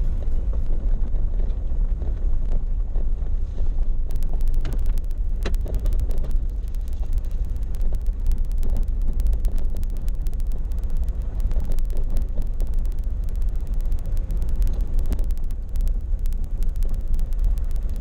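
A vehicle driving on a gravel dirt track: a steady low rumble with wind noise on the microphone, and frequent small clicks and rattles from about four seconds in.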